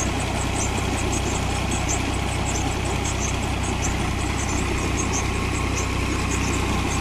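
New Holland tractor engine running steadily under load, driving the belt of a tubewell pump, with irregular short high chirps a few times a second from the drive belt squealing as it slips. Water gushes from the pump's outlet pipe throughout.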